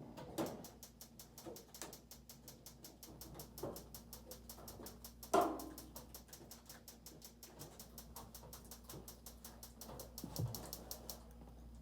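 Oven's spark igniter clicking rapidly and evenly, about six clicks a second, while its button is held down; the clicking stops about eleven seconds in. A louder knock about five seconds in, with smaller knocks near the start and near the end.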